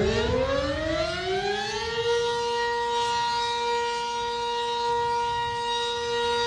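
Civil defense siren winding up in pitch over about two seconds, then holding one steady tone.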